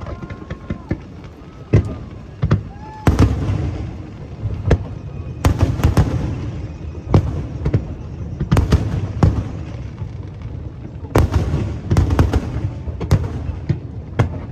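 Aerial fireworks bursting in rapid volleys of sharp bangs with crackling trails. The densest clusters come about three, six, nine and twelve seconds in.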